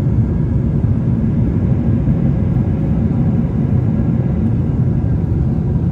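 Jet airliner cabin noise in cruise, heard from a window seat over the wing: a loud, steady low rumble of engines and airflow.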